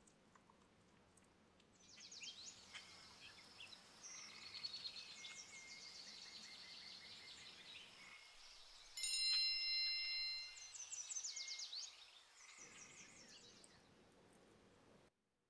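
Small birds chirping over and over in quick, high, falling chirps, with a bell-like chime ringing for about a second and a half near the middle. The sound cuts off suddenly near the end.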